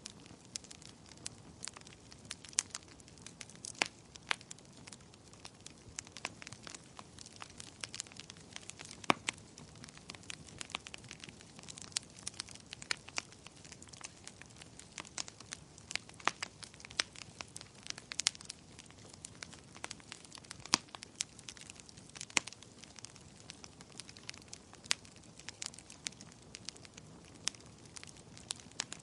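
Wood fire crackling: irregular sharp pops and snaps, some loud, over a low steady hiss of burning wood.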